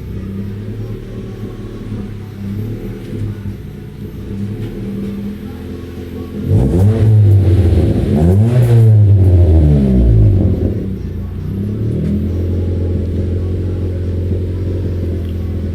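Car engine idling through an aftermarket muffler exhaust, blipped twice about halfway through, the pitch rising and falling with each rev, then settling back to idle.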